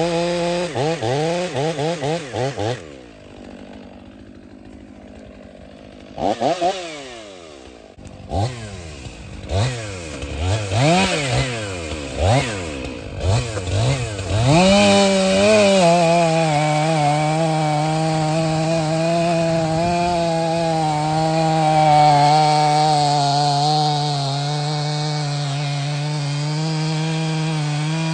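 Chainsaw revving unevenly, dropping to a low idle for a few seconds, then blipped several times before being held at a steady high pitch from about halfway on, typical of the saw cutting under load through a thick spar.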